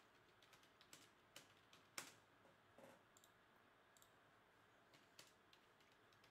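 Faint computer keyboard typing: scattered, irregular key clicks, the sharpest about two seconds in.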